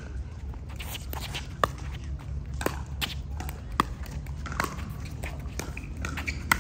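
Pickleball paddles hitting a plastic pickleball back and forth in a doubles rally: a string of sharp pops at irregular intervals, the loudest near the end.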